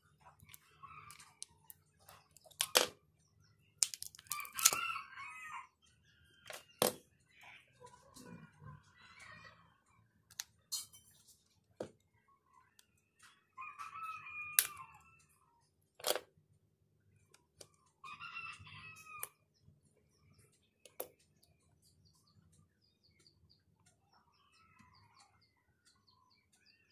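Chickens calling in the background, a rooster crowing among them, about seven calls of a second or so each. Among the calls come sharp clicks and snaps from a pry tool working around a smartphone's frame; these are the loudest sounds.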